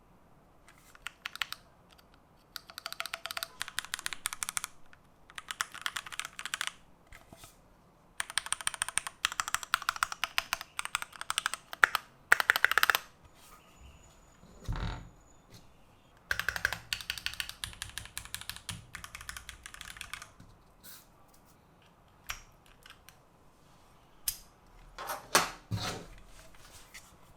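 Typing on a Keychron Q2 aluminium-cased mechanical keyboard: several runs of rapid key clacks with short pauses between them. A single low thump comes about halfway through, and a few louder knocks come near the end.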